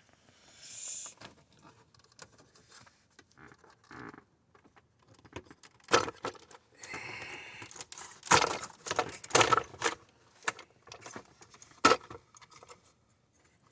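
Plastic dashboard trim and its retaining clips being worked loose and handled on a 2006 Nissan Maxima: a string of sharp clicks, knocks and rattles, louder in the second half.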